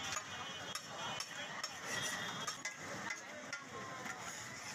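Scattered metal clinks and scraping of cooking utensils against steel cookware, repeating irregularly.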